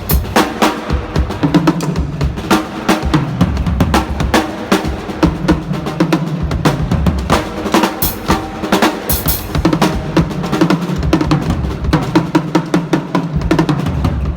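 A drum kit played busily and fast, with many snare and bass-drum strikes and rolls, over a held low bass line.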